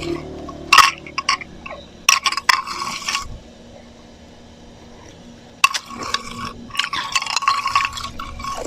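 Slushy ice crunching and crackling in close-up, with wet, glassy clinks. It comes in three bursts: a short one about a second in, a longer one around two to three seconds, and a dense stretch of crackling from before six seconds to the end, with a lull between.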